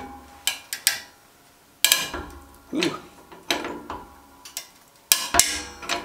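3D-printed plastic tube-bending die cracking and popping under a press's load, a string of irregular sharp snaps, the loudest about two seconds in and a last cluster with a heavy thump near the end: the printed parts are starting to fail.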